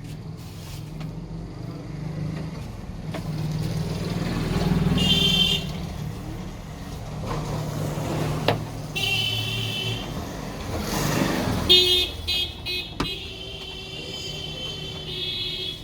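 Street traffic passing, with engines rumbling and swelling as vehicles go by, and vehicle horns honking several times, the last held on and off from about three-quarters of the way through to the end. A couple of sharp clicks stand out.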